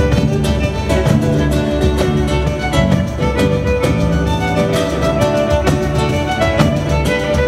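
Live folk music: a violin plays a melody over the steady beat of a frame drum with jingles (tamburello).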